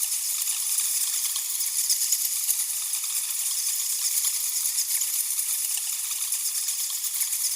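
A crowd of bats chittering, a dense, unbroken stream of high, sharp squeaks and clicks with no low sound beneath.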